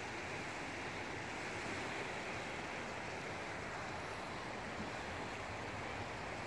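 Small waves washing steadily onto a pebble lakeshore.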